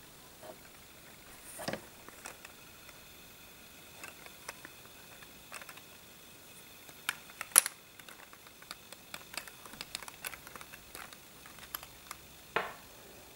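Irregular plastic clicks and knocks of Lego bricks and plates being handled, pulled apart and fitted together, with one sharp click about halfway through.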